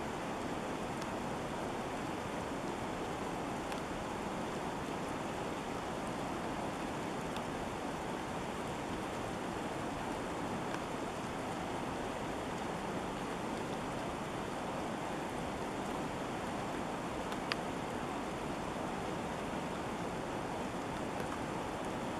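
Steady rushing of open river water flowing out below a dam, its surface crowded with drifting pancake ice. One faint click about 17 seconds in.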